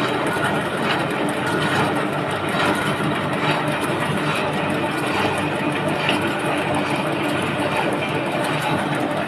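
Industrial machinery running steadily, with a constant hum under a dense hiss and faint scattered ticks.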